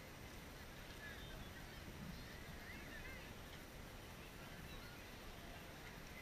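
Faint beach ambience: a steady hiss with a few faint, high wavering calls in the distance.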